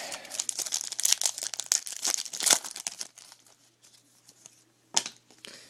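Crinkly foil trading-card pack wrapper being torn open and crumpled, dense crackling for about three seconds and then lighter rustling, with one sharp snap about five seconds in.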